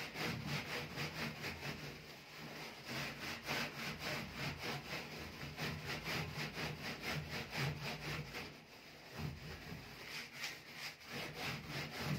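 A metal scrubber rubbed hard back and forth over a gas stove's metal side panel, a rhythmic scratchy scrubbing at about four strokes a second.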